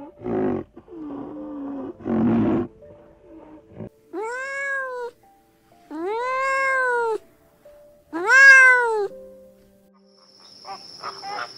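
A cat's calls: two rough growling cries, then three long meows about two seconds apart, each rising and falling in pitch. Near the end a steady high insect-like trill starts.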